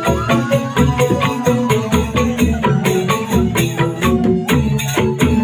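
Music: a melody of held notes over steady, quick percussion strikes.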